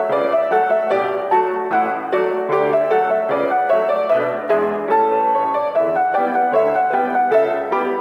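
Piano duet playing a lively polka on grand pianos, with quick, evenly paced notes over a bouncing accompaniment.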